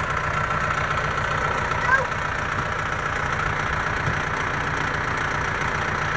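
Forklift engine running steadily with a constant low rumble.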